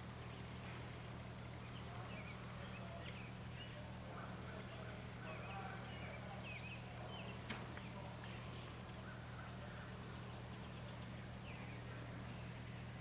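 Faint outdoor ambience: scattered short bird chirps over a steady low hum.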